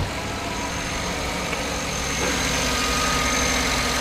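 Chevy Tahoe's 5.3-litre V8 idling steadily after a new oil pressure sensor has been fitted, with a thin high whine over it and a slight rise in level about two seconds in.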